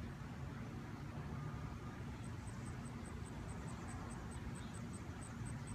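Outdoor background: a steady low rumble, with a high-pitched chirping pulsing about five times a second that breaks off at the start and resumes about two seconds in.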